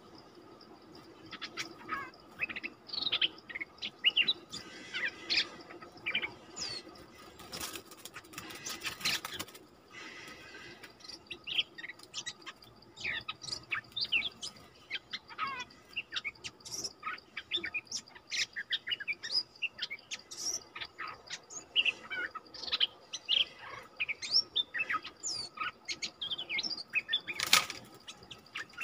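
Stripe-throated bulbuls calling at a decoy trap cage: a busy run of short, quick chirps and whistled notes, rising and falling. Two short bursts of wing flapping break in, one about eight seconds in and one near the end.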